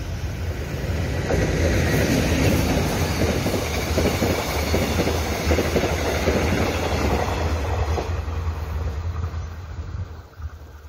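Korail Mugunghwa-ho passenger train passing on the far track: a steady rumble of steel wheels on rail with fast clatter. It builds over the first couple of seconds and fades away near the end.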